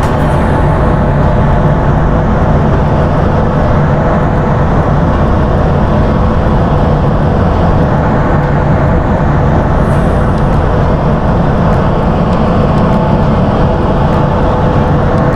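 A ship's engine and machinery running: a steady, loud rumble with a constant hum.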